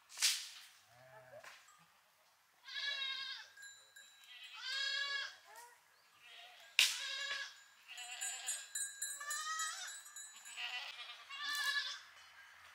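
A flock of sheep and goats bleating, several separate quavering calls one after another. A sharp click or knock comes just after the start and another about halfway through.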